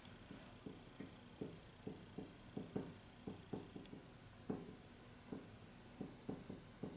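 Marker pen writing on a whiteboard: a faint, irregular run of short strokes and taps as characters are written.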